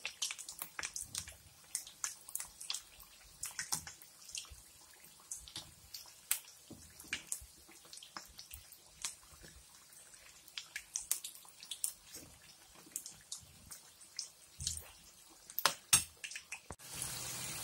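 Battered ivy gourd fritters deep-frying in hot oil: irregular crackles and pops over a faint sizzle, with a denser hiss for about a second near the end.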